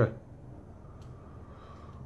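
Quiet room tone: a low steady hum, with one faint click about a second in.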